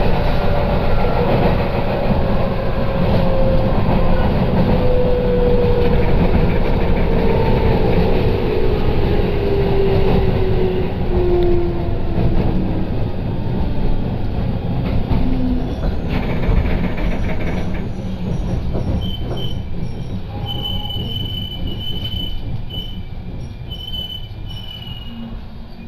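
Inside an electric train slowing to a stop at a station: running noise with a motor whine that falls in pitch over the first dozen seconds, growing quieter as the train slows. Short high squeals come in near the end as the brakes bring it to a halt.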